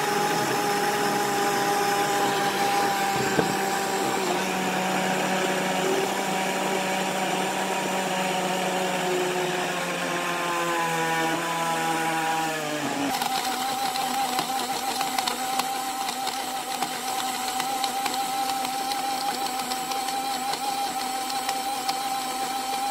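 Small battery-powered portable juice-cup blender switching on and running, its blade chopping chunks of strawberry, carrot and ice into juice. Its pitch sags from about ten to thirteen seconds in, then the sound changes suddenly to a steady whine.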